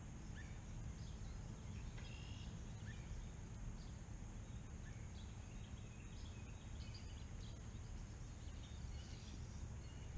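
Faint outdoor lake ambience: a steady low rumble and high hiss, with scattered short bird chirps.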